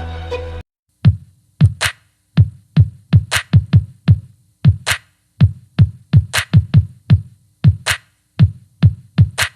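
Hip hop beat music: a sustained synth chord cuts off suddenly, and after a brief silence a bare drum-machine beat starts, deep kick drums with sharp snare hits and no melody over them.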